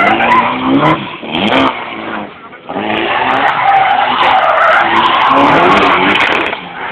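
A drifting car's tyres screech on asphalt as it slides past, over the noise of its engine working hard. There are two long bouts of screeching, with a short lull about two seconds in.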